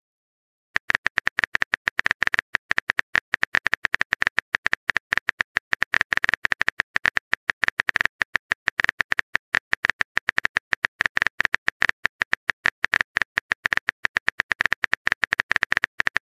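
Rapid, even keyboard tap clicks of a texting-app typing sound effect, about ten a second, starting just under a second in as a message is typed out letter by letter.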